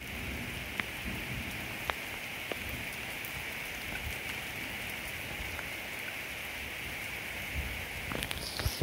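Steady rain falling on a wet paved road: an even hiss with sharper drips now and then, a few louder ones near the end.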